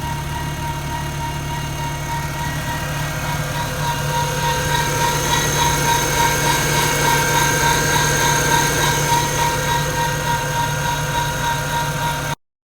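2001 VW Jetta MK4 2.0L inline-four engine running at idle, with a high whine that pulses in a quick rhythm over the engine hum, growing a little louder a few seconds in. It is the timing-belt noise that the owner traced to the timing belt rubbing its cover.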